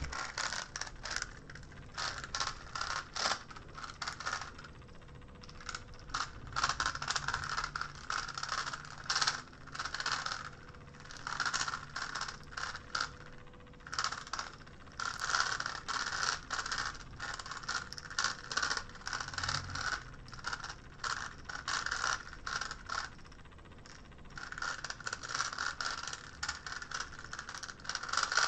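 GAN Megaminx being turned rapidly in a speedsolve: bursts of fast plastic clicking and clacking as its faces snap round, broken by short pauses.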